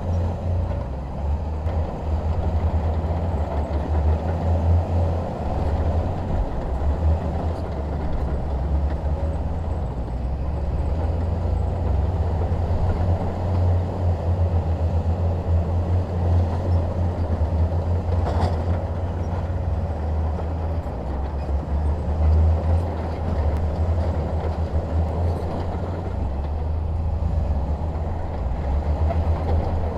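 Bulldozer's diesel engine running steadily with a deep, even rumble, and one brief faint clank a little past halfway through.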